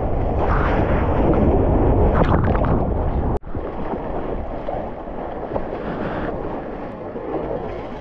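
Breaking surf rushing around an action camera, with wind buffeting its microphone. About three and a half seconds in the sound cuts off abruptly, and then quieter water sloshes and splashes over the nose of a bodyboard.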